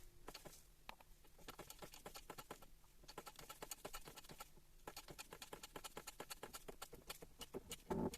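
Faint, quick clicking and light tapping, several clicks a second in two runs, with a louder knock near the end.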